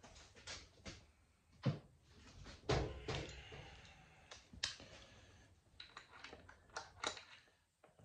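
Hand tools and sockets clinking and knocking while someone rummages through a metal tool chest, with a handful of sharp knocks among softer rattles.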